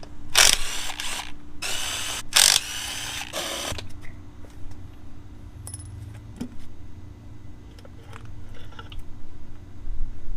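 Power driver run in three short bursts, backing out bolts while the Harley's primary cover is being removed, followed by quieter small clicks and clinks of tools and parts being handled.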